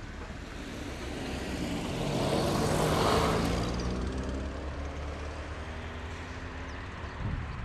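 A road vehicle passes close by: its noise swells to a peak about three seconds in, then fades as it moves away, leaving a low engine hum.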